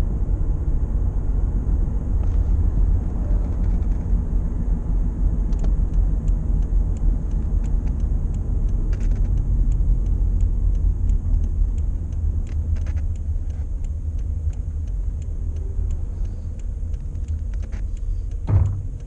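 Toyota Camry driving with a steady low road rumble in the cabin, with a run of irregular sharp clicks that begins about five seconds in and grows denser later on. This is the low-speed braking noise, which the owner traced to rust under the front driver-side ABS sensor mount lifting the sensor away from its tone ring.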